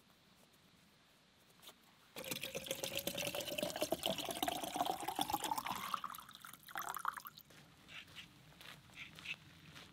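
Water pouring into a wide-mouth plastic water bottle, its pitch rising steadily as the bottle fills, starting about two seconds in and stopping about five seconds later.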